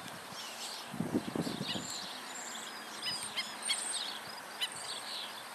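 Several birds chirping and calling, many short high notes overlapping, against a steady outdoor background. A brief low rumble sounds about a second in.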